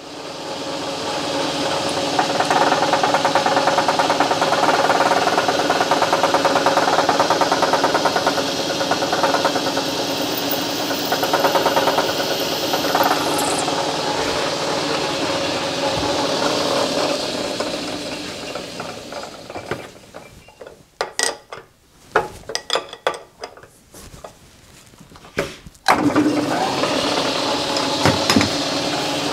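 Belt-driven metal lathe running while a center drill in the tailstock chuck bores into the end of a hardened steel shank. About two-thirds of the way through the lathe winds down. A few sharp clicks and knocks follow, then the lathe starts up again near the end.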